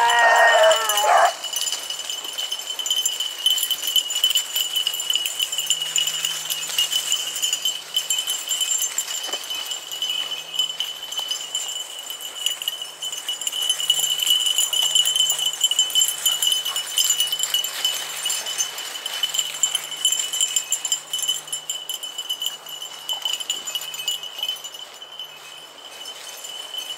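Beagle baying in a loud wavering howl for the first second or so, with faint on-and-off baying of the pack after it. Dry leaves and brush rustle underfoot throughout, under a steady high whine.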